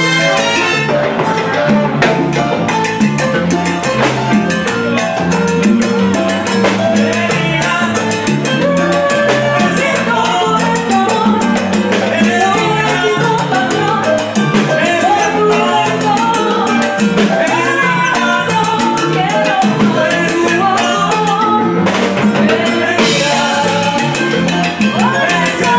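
Live salsa band playing: a stepping bass line under a drum kit and dense Latin percussion, with a melody line over the top.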